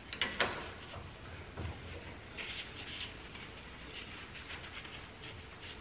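Hand ratchet clicking in short runs as the 15 mm nuts on a quick-change differential's front cover are turned, with two sharp metal clinks just after the start.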